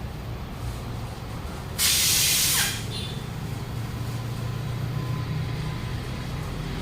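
A loud hiss of compressed air lasting just under a second, about two seconds in, over a steady low hum.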